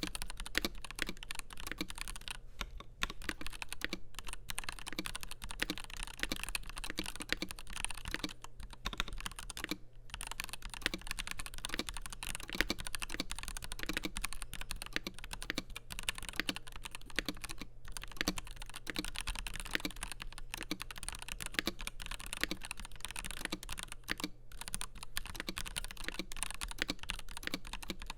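Continuous typing on a FiiO KB3 gasket-mounted mechanical keyboard with Gateron G Pro 3.0 Yellow linear switches, a stainless steel plate and translucent PC keycaps: a rapid stream of keystrokes with a few brief pauses.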